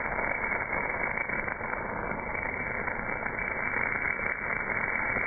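MAG (gas metal arc) welding arc at 280 A on a casting, burning continuously with a steady, even hiss and a few faint ticks.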